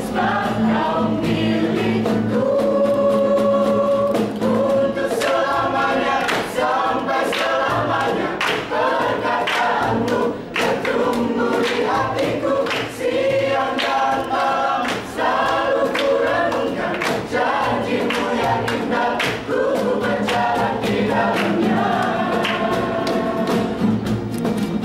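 Mixed vocal group of young men and women singing a gospel song in several parts, with acoustic guitar and hand claps keeping a steady beat.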